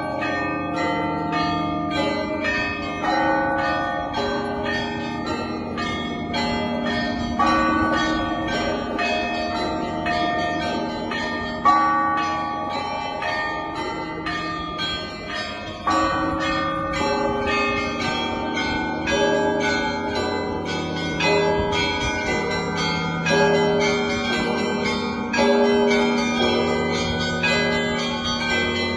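Russian church bells ringing a peal: many bells of different pitches struck in quick succession and ringing over one another, with louder, heavier strokes now and then, notably about 12 and 16 seconds in.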